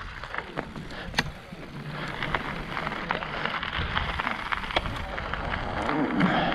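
Mountain bike rolling off grass onto a gravel path: tyres crunching on loose gravel with scattered sharp clicks of stones and bike rattle, over a low wind rumble on the helmet-camera microphone.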